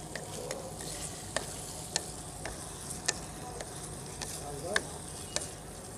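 Wooden spatula stirring taro slices, tomato and onion in a kadhai, knocking against the pan about every half second over a faint sizzle of frying.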